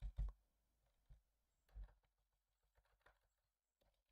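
A few faint computer keyboard keystrokes, spaced out with pauses between them, as a line of text is typed and edited.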